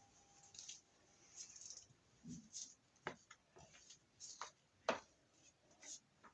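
Faint rustling with a few soft clicks scattered through a quiet room.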